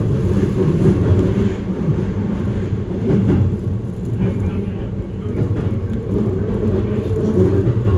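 Keikyu Main Line commuter train running, heard from inside the carriage: a steady low rumble of wheels on the rails.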